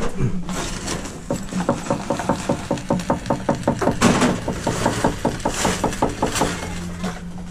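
Expanding-foam gun squirting foam into a door-frame gap, ticking or sputtering rapidly and evenly, about five times a second, over a steady low hum. The ticking stops about a second before the end.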